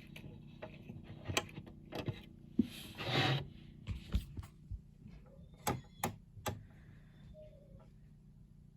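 Handling noise as a small handmade crab figure is fitted onto a metronome: light, irregularly spaced clicks and taps, with a short rustling scrape about three seconds in.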